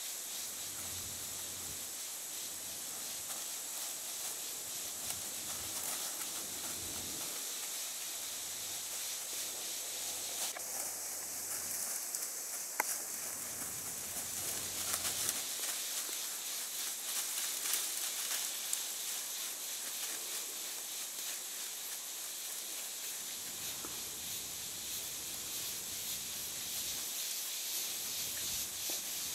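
Steady high hiss outdoors, with faint uneven rustles and one sharp click about thirteen seconds in.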